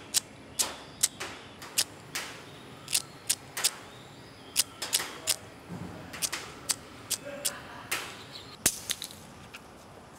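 A disposable lighter flicked over and over with the thumb, about eighteen short sharp strikes at irregular spacing, some in quick pairs; the lighter fails to catch.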